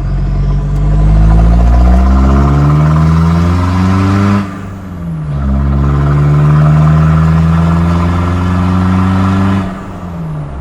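Mazda BT-50 ute's turbocharged engine pulling hard under acceleration, rising in pitch for about four seconds, dropping briefly at a gear change, then climbing again before easing off near the end.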